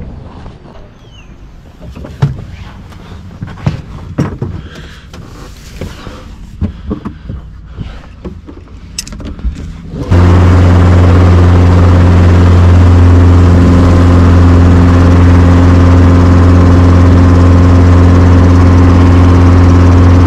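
Scattered clicks and light knocks, then an abrupt switch about ten seconds in to a helicopter's engine and rotor running loud and steady from inside the cockpit, a deep even drone as it lifts off and climbs.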